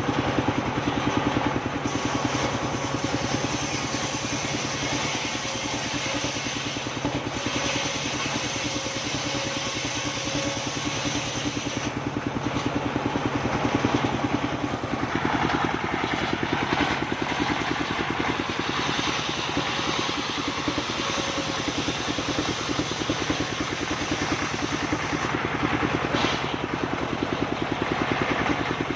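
Engine-driven sawmill running steadily while sawing sengon wood, its higher cutting noise swelling and easing over several seconds as the blade works through the timber.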